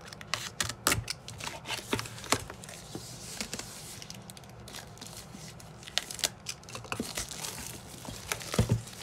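Clear plastic shrink wrap crinkling and tearing as it is pulled off a planner cover, a run of irregular sharp crackles, the loudest near the end.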